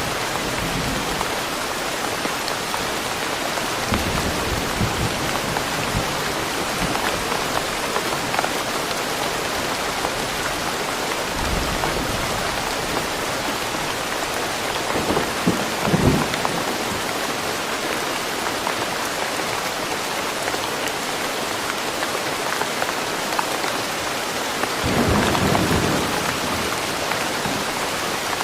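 Steady, even rain falling in a forest, with two brief low rumbles: one about halfway through and a longer one near the end.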